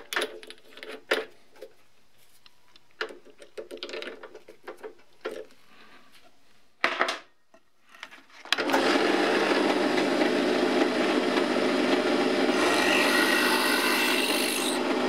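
Small clicks and knocks as a number 34 drill bit is fitted into a bench drill press chuck; a little over halfway through, the drill press motor starts suddenly and runs steadily. The bit then cuts a 4BA tapping-size hole through a thin brass strip, giving a higher-pitched cutting sound for about two seconds near the end.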